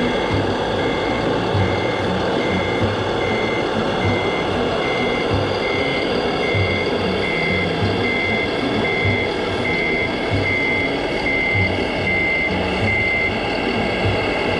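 Reversing beeper of a radio-controlled model truck or construction machine, beeping steadily at just under one beep a second and stopping about a second before the end, over a low running-engine sound and a busy outdoor background.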